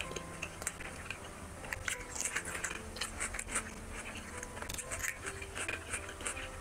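Eating sounds: fingers mixing rice and curry on a plate and food being chewed, a scatter of short wet clicks and crackles, over soft background music.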